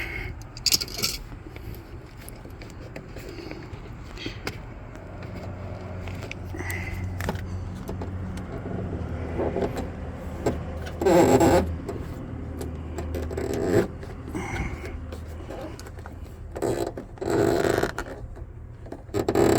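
Clicks, taps and scrapes of plastic trim and seat-belt anchor hardware being worked loose inside a car, over a steady low hum. A louder scraping burst comes about halfway through and another near the end.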